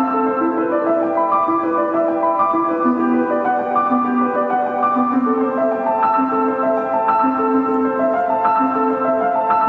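Instrumental background music: a steady melody of plucked or struck keyboard-like notes.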